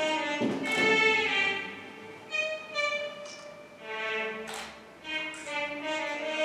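Violin music playing slow, held notes, one after another, with a few sharper attacks.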